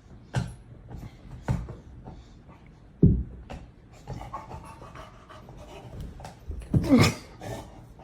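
A dog panting, with a few sharp clicks and two louder short sounds falling in pitch, about three seconds in and near the end.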